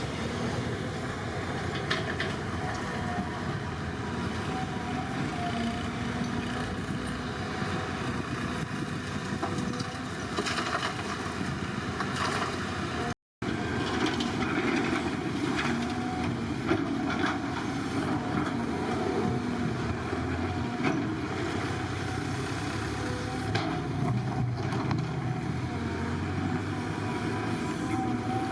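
Heavy construction machinery running steadily, with a few knocks along the way. The sound cuts out for a split second about thirteen seconds in.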